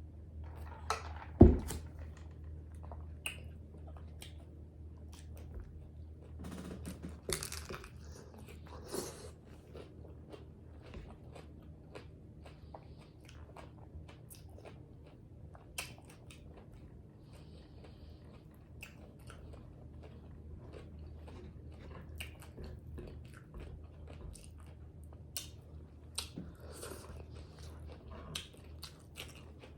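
A person chewing and biting tacos close to the microphone, with crunching and many small mouth clicks. A single loud thump about a second and a half in.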